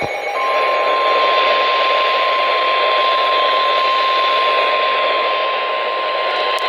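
NOAA Weather Radio warning alarm tone: a single steady 1050 Hz tone, loud and unbroken, starting about half a second in over heavy radio static. The tone signals that a warning, here a tornado warning, is about to be read.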